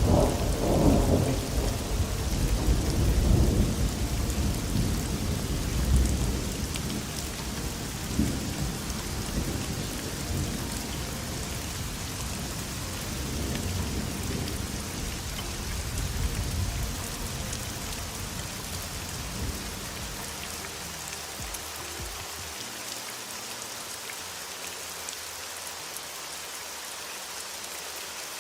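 Heavy rain falling steadily, with a long roll of thunder rumbling through the first half and dying away to leave only the rain.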